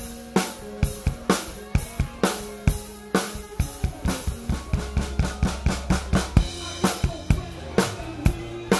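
Drum kit played live at close range: kick and snare hits on a steady beat with cymbals, the hits coming busier in the middle. Sustained bass notes from the rest of the band run underneath.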